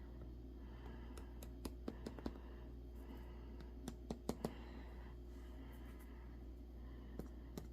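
Scattered light clicks and taps of small hard pieces (acrylic handle blanks, picks, an adhesive tube) being handled on a work surface while gluing, in small clusters, over a steady low hum.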